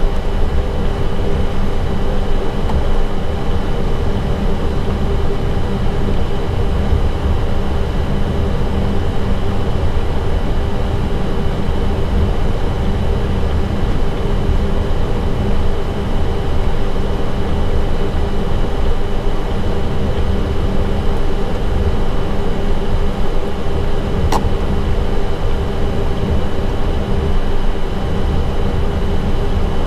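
Airbus A320 flight deck noise while taxiing with the engines at idle: a steady rumble and hum. A single sharp click comes about three-quarters of the way through.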